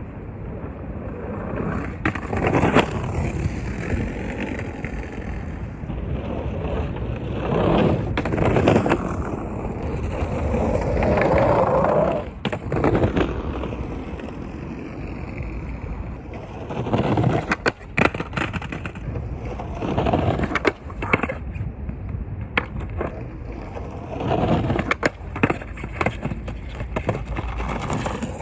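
Wind buffeting the microphone in strong gusts, a heavy rumbling noise that swells and eases every few seconds. Several sharp knocks or clacks come in the second half.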